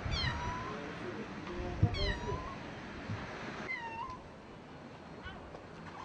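A cat meowing three times, each call about half a second long and sliding down in pitch, with a fainter fourth call near the end. A single short knock comes just before the second call.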